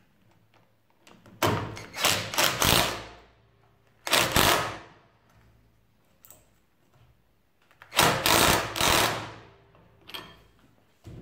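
Cordless impact wrench hammering in three bursts, the first and last about a second and a half long and the middle one shorter, as it runs down and tightens the clutch nut on a moped engine.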